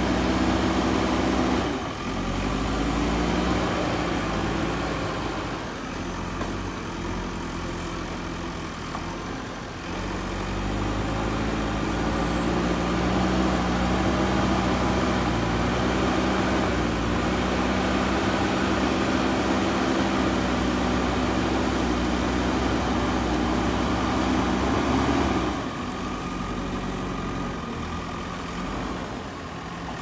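JCB backhoe loader's diesel engine working under load as the front loader bucket pushes earth. The engine note drops about two seconds in, rises again around ten seconds and holds, then falls back near the end.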